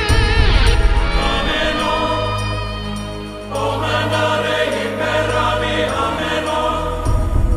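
Background music: a choral chant over sustained synth tones and a heavy low beat, easing off briefly about three seconds in before swelling back.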